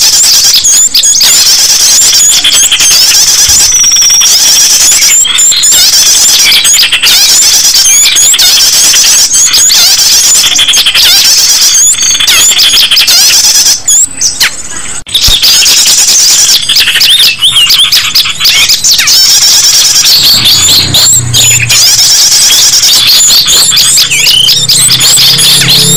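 A dense, noisy chorus of small songbirds, many overlapping rapid high chirps and short trills with no pause. It is a mixed bird-luring recording for attracting small wild birds.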